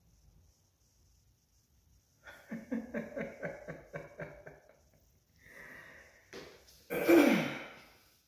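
A man laughing in a run of short, evenly paced bursts for about two seconds, then, a couple of seconds later, one loud sudden breathy vocal burst whose pitch falls away.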